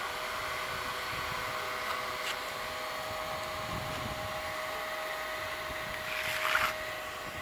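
Small electric blower motor salvaged from a hair dryer, running with a steady whine. A short hiss comes about six seconds in.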